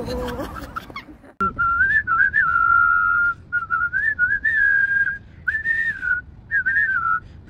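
A melody whistled on a single clear note-line, moving up and down in short phrases with brief breaks between them, starting after a sharp click about a second and a half in.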